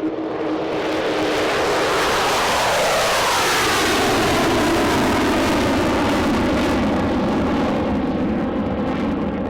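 Jet engine of NASA's ER-2 aircraft, a single-engine turbofan, passing close by under power. A loud rushing jet noise builds over the first second, and its whine falls in pitch as the aircraft goes past, then stays loud and steady.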